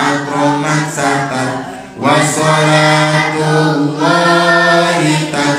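Voices singing an Arabic devotional song in long held notes, with a short break about two seconds in.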